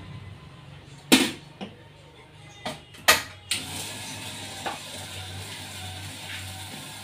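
Sharp metallic clicks and knocks as the kettle and motor unit of a 12-volt popcorn machine are handled, about six of them, the loudest about one and three seconds in. From about three and a half seconds in, a steady low mechanical hum runs underneath.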